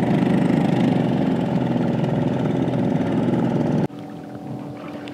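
Small outboard motor on a kayak running steadily at cruising speed. About four seconds in it cuts off sharply to a much quieter steady hum.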